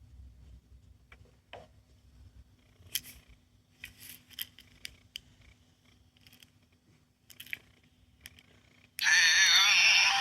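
Light plastic clicks and taps from a small sound-making capsule toy being handled and its button pressed, then about nine seconds in the toy's sound chip starts playing a song in a synthesized singing voice, much louder than the clicks.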